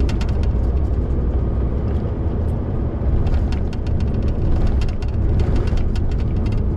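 MAN lorry driving along a wet road: a steady low rumble of engine and tyres, with scattered light clicks and rattles.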